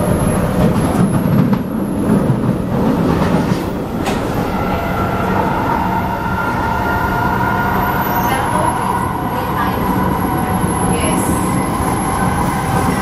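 Kawasaki C751B metro train running at speed, heard from inside the car: a low rumble of wheels on rail with a few sharp clicks early on, and a steady high whine that comes in about five seconds in.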